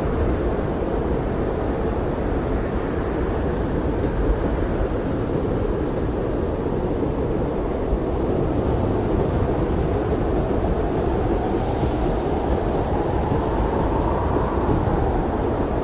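Blizzard wind blowing in a steady deep rush, with a faint whistling tone that rises and falls near the end.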